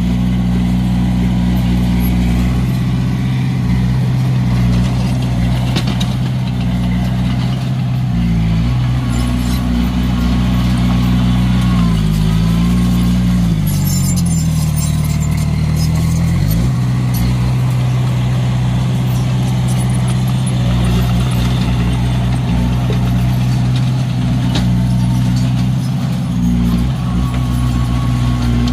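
Komatsu D21A bulldozer's diesel engine running steadily. About midway its note drops for a few seconds and then comes back up, with some clanks.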